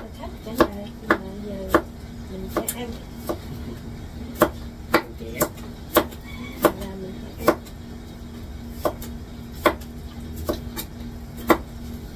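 Kitchen knife slicing a cucumber on a plastic cutting board: sharp, irregular knocks of the blade against the board, roughly one or two a second.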